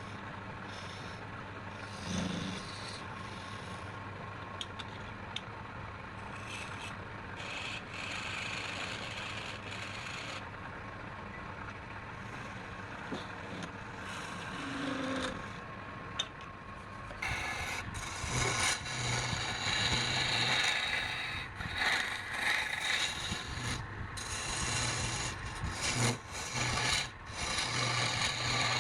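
Wood lathe running while a tool scrapes and rubs against the turning wood; the scraping gets louder and more uneven about two-thirds of the way in.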